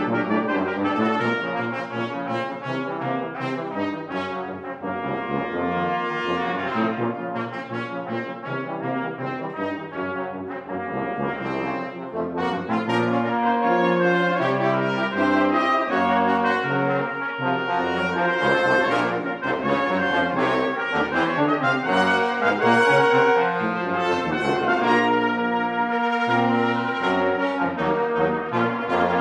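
Brass quintet of two trumpets, French horn, trombone and tuba playing together, with many changing notes over a moving bass line. The ensemble grows louder about twelve seconds in.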